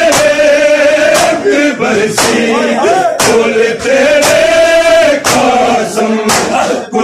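A crowd of men beating their chests in unison (matam), one sharp slap about every second, over a group of male voices chanting a Punjabi noha.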